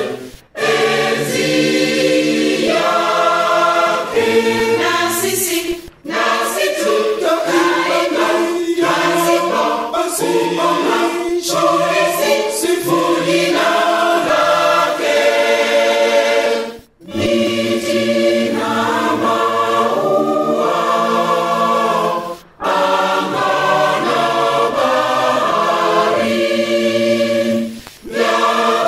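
Lutheran cathedral choir singing a Swahili hymn in full multi-part harmony, breaking off briefly between phrases several times.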